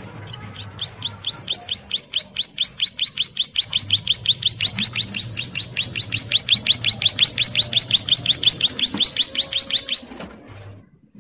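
Ciblek sawah, a prinia, singing a long, fast series of sharp high notes at about five a second. This is the rapid 'ngebren' song of a bird in full song. The notes grow louder and stop abruptly near the end.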